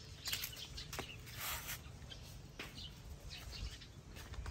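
Quiet outdoor ambience with scattered light taps and brief rustles, and a few faint bird chirps.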